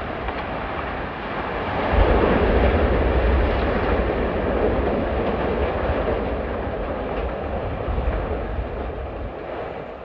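Steel blast furnace collapsing in an explosive demolition: a heavy rumble of falling structure that swells to its loudest about two seconds in, then slowly dies away.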